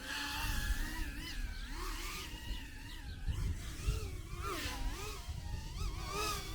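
Electric motor whine of a micro FPV racer, its pitch rising and falling quickly as the throttle is worked, over a rough low rumble.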